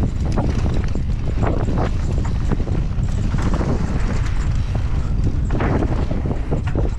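Mountain bike riding fast down a dry, rocky dirt trail: tyres crunching and skidding over loose gravel and stones, and the bike rattling in rapid, irregular knocks, over a low rumble of wind on the microphone.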